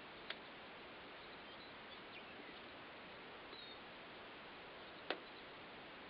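Two sharp clicks about five seconds apart, from the toggle switches of a home-built remote-control rocket launcher box being flipped, over a faint steady hiss.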